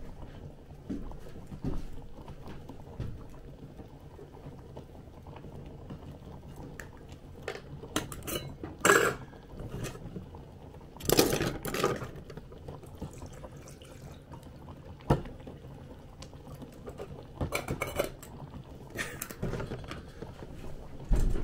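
Water poured into a cup and cookware handled with light clinks, in several short bursts, over a faint steady low hum.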